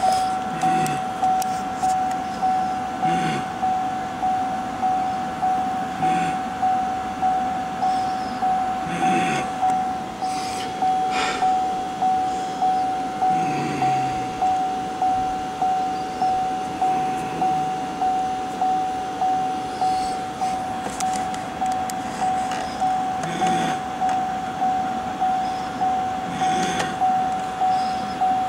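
Chevrolet Volt's electronic warning chime, one high tone sounding again and again at about once a second, with a few faint knocks and rustles under it.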